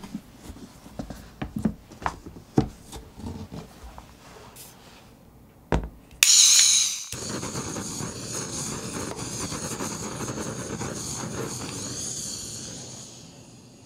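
Knocks and clicks of a plastic container and a metal cake mold being handled, then a handheld kitchen gas torch lights about six seconds in with a sharp burst of hiss and burns with a steady hiss that fades near the end. The flame is playing on the side of the metal mold, warming it to loosen the chilled mousse cake.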